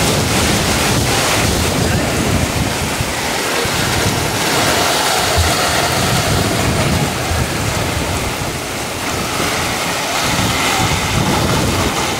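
Heavy rain pouring down onto tent canopies and a paved street, a loud, steady wash of noise, with water running off the canopy edges.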